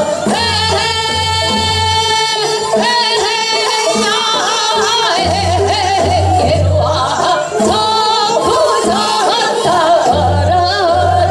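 Two women singing Seodo sori, the folk song style of Korea's western provinces, in duet through microphones, with a long held note about a second in and strong wavering vibrato on their phrases. A low instrumental accompaniment comes and goes beneath the voices.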